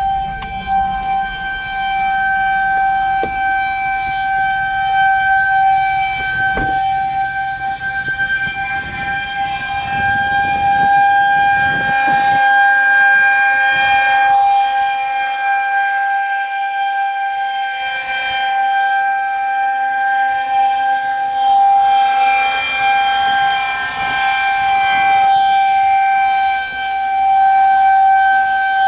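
Federal Signal 2001-130 rotating outdoor warning siren sounding a steady tone at full speed, activated for a severe thunderstorm. The pitch holds level while the loudness rises and falls gently as the siren head turns.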